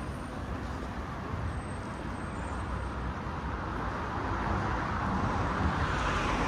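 Road traffic noise, a steady rush of passing vehicles that swells louder over the last couple of seconds.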